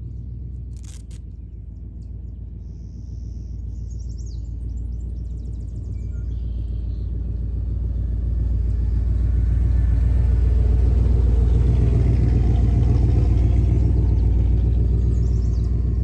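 Wind buffeting the camera microphone: a low, uneven rumble that builds over the first several seconds and is loudest in the second half.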